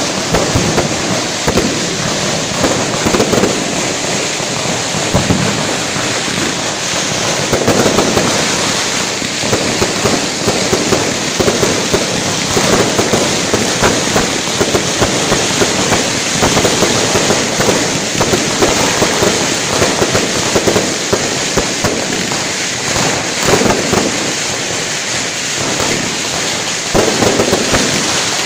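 Strings of firecrackers going off without a break, a dense rapid crackle of bangs throughout.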